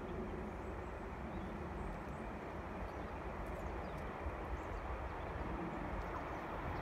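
Steady low outdoor rumble with wind buffeting the microphone; no distinct event stands out.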